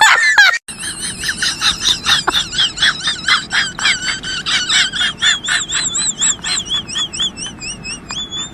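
A brief voice cry, then a long rapid series of high chirps, about five a second, wavering in pitch and slowing and fading toward the end.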